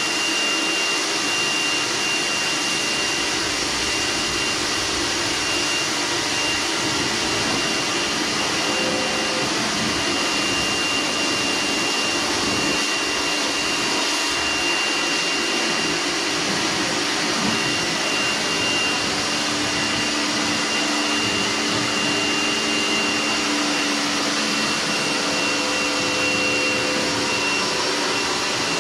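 Kärcher electric pressure washer running steadily, its motor and pump giving a thin high whine over the hiss of the water jet spraying the motorcycle to rinse off the shampoo.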